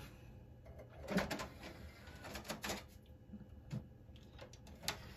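Faint scattered clicks and knocks of a PC's optical drive tray opening and a boot CD being taken out.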